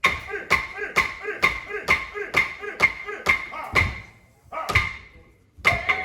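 Wooden clapsticks struck together in a steady beat of about two strikes a second, each strike ringing briefly. They pause briefly about four seconds in, then pick up again with quicker strikes near the end.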